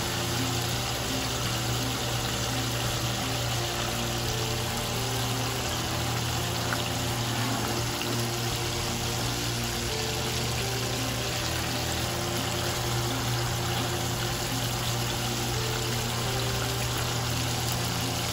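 Chicken pieces deep-frying in vegetable oil in a cast iron pot: a steady, unbroken sizzle and bubbling of hot oil. Background music plays under it.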